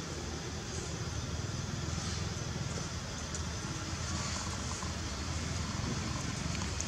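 Steady low outdoor background rumble with a faint hiss, with no clear monkey calls.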